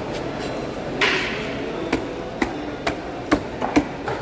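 A large knife chopping into a spangled emperor (sheri) fish on a cutting board: a series of about half a dozen sharp knocks, roughly two a second.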